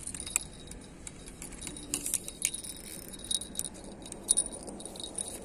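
Light, irregular metallic clinking and jingling from fishing tackle as the rod and reel are handled, with a faint steady hiss underneath.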